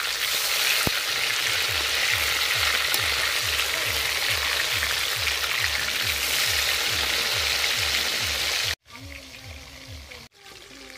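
Tuna fish steaks deep-frying in hot mustard oil in an iron kadai, a loud steady sizzle, with a metal spatula stirring and turning them. The sizzle cuts off abruptly about nine seconds in, leaving a much quieter background.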